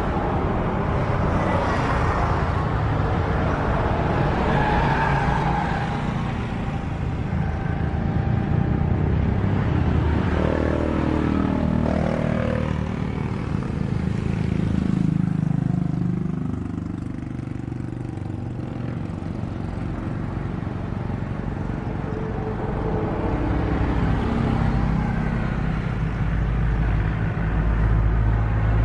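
Jet engines of a Boeing 737 airliner running as it taxis, then a deep rumble building near the end as it rolls for takeoff.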